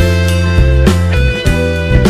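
Instrumental background music with a steady beat and a moving bass line.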